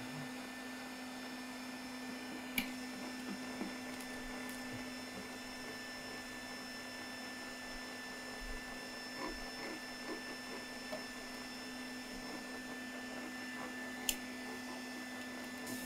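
Steady low hum of a home-built PET bottle-to-filament machine running, with two light clicks, one a few seconds in and one near the end.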